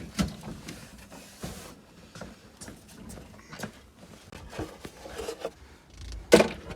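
Scattered light knocks, clicks and rustles of hands handling parts inside a stripped Jeep Cherokee interior, with a sharper knock just after the start and a louder one near the end.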